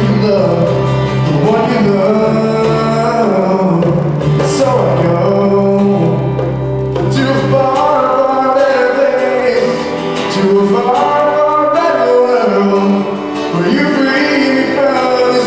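Live band playing a worship song: male voices singing over strummed acoustic guitar, electric bass and bongos. The low bass notes drop out about halfway through.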